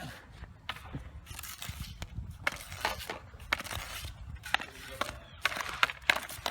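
Street hockey stick and puck knocking and scraping on pavement: irregular sharp clicks, a few each second.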